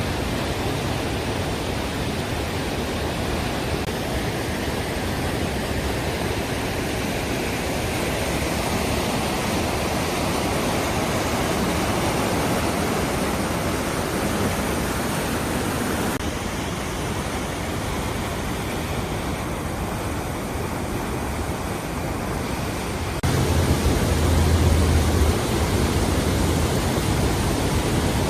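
Steady rushing roar of river water pouring through a rocky gorge. The sound changes abruptly about sixteen seconds in, and again a few seconds later, where it grows louder with a low rumble.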